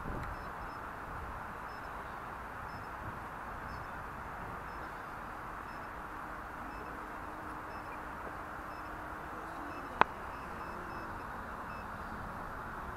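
Steady hiss of outdoor background noise, with faint short high beeps repeating at a steady pace and one sharp loud click about ten seconds in.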